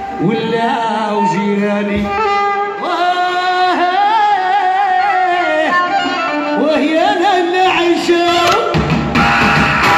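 Live amplified band music: a male singer sings an ornamented, wavering melody into a microphone over the band. Hand drums and percussion come in loudly about nine seconds in.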